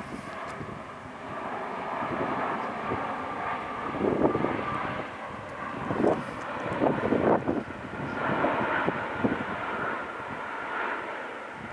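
Airbus A350-1000's two Rolls-Royce Trent XWB-97 turbofans: steady jet engine noise as the airliner passes low overhead, swelling and easing in loudness with a few louder rumbling surges.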